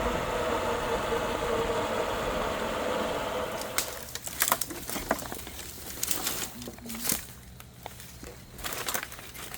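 A vehicle engine running close by, with a steady hum, dying away about three and a half seconds in. Scattered sharp clicks and knocks follow.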